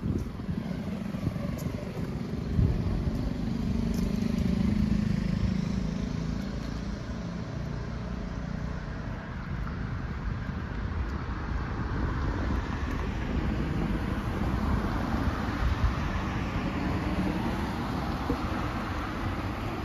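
Road traffic passing close by: one vehicle's engine swells and slides in pitch as it goes past about four to six seconds in, and another builds up and passes in the second half. Wind buffets the microphone.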